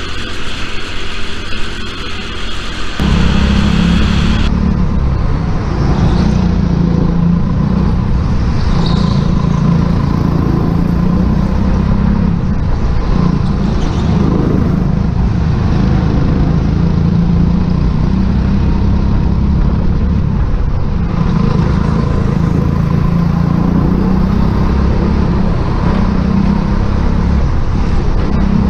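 Go-kart engines running at speed, heard onboard in an indoor kart hall with other karts close by. About three seconds in, the sound changes abruptly to a louder, deeper engine sound that carries on steadily with small rises and falls.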